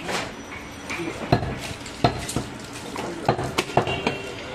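A butcher's knife cutting mutton off a goat's leg on a wooden log chopping block: a series of irregular sharp knocks as the blade strikes the wood and the meat is handled.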